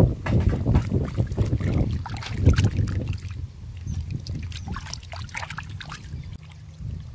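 Water sloshing and splashing in a metal basin as hands rub and wash pieces of raw stingray: heavier sloshing for the first three seconds, then lighter, scattered splashes and drips.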